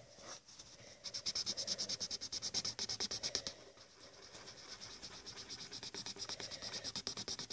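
A pen scratching quickly back and forth on paper, colouring in with rapid strokes at about ten a second; the strokes are louder for the first few seconds and softer after a short break near the middle.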